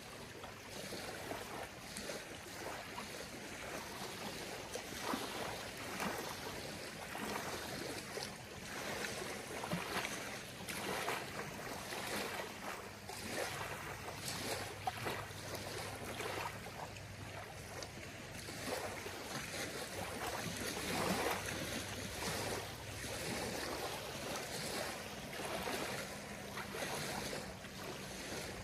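Small lake waves lapping on a gravel shore, a soft splash every second or two at an uneven pace, a little louder about twenty seconds in.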